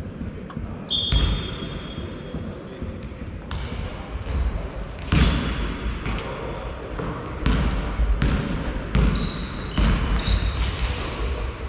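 Basketball game play in a sports hall: the ball thudding on the court and sneakers squeaking on the floor in short high squeals, with players calling out.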